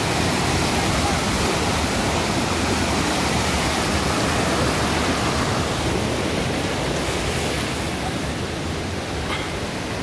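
Mountain stream rushing and splashing over a small concrete weir and rocks, a steady loud rush that eases slightly over the last few seconds.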